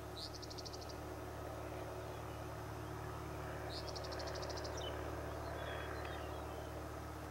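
Distant drone of a light towplane's engine overhead, swelling slightly toward the middle and then easing. A bird sings a quick high trill twice, once near the start and again about halfway through.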